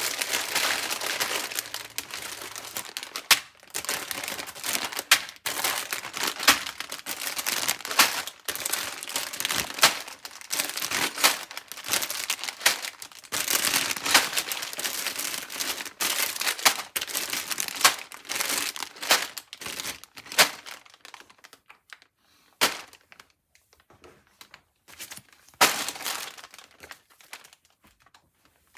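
Plastic Lego parts bags crinkling as they are handled, mixed with sharp clicks and clatters of plastic pieces. It thins out to scattered clicks over the last several seconds.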